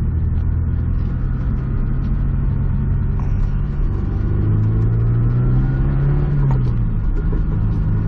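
Honda S2000's four-cylinder engine and drivetrain heard from inside the car while driving, the engine note climbing from about four seconds in, then dropping quickly a little after six seconds. The owner suspects the differential is damaged after a crash.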